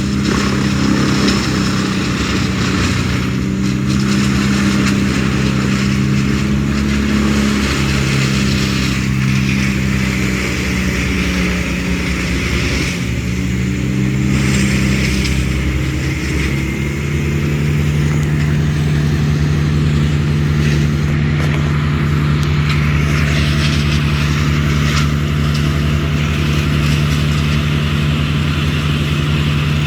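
An engine running steadily throughout. Its note sags briefly about halfway through, then settles at a steady pitch.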